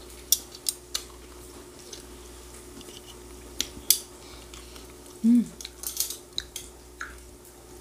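Scattered sharp clicks and clinks of metal eating utensils against dishes at a meal, with a short hum of a voice about five seconds in and a faint steady hum underneath.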